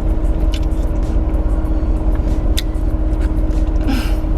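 Steady hum of a parked car's running engine and air-conditioning blower inside the cabin, with a few light clicks.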